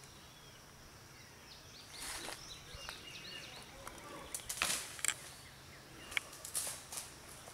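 Knocks, clicks and rustling from the camera being grabbed and swung around, loudest about four and a half to five seconds in. Small birds chirp in the background.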